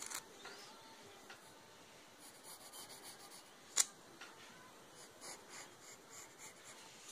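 Pencil scratching on lined paper in soft, short strokes, faint throughout, with one sharp tap about halfway through.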